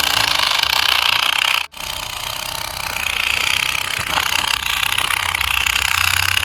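Steady mechanical running noise with a fast rattle, like a small machine at work, cut off abruptly for an instant a little under two seconds in and then resuming.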